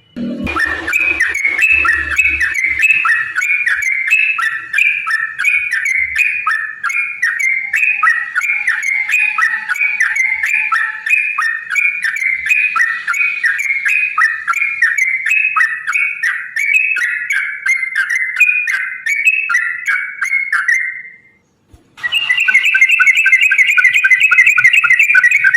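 Yellow-vented bulbul (trucukan) singing a long, fast run of chattering notes without pause, the fighting-style 'ropel' song; it stops abruptly about 21 seconds in and starts again a second later.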